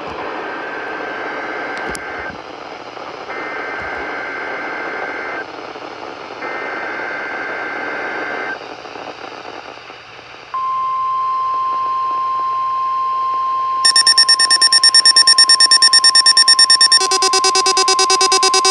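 NOAA Weather Radio test tones: three buzzy two-tone bursts of SAME digital header data, each about two seconds long. About ten seconds in, the steady 1050 Hz warning alarm tone follows. About fourteen seconds in, a tone-activated receiver's electronic alarm starts beeping over the tone, switching to a faster beep pattern about three seconds later.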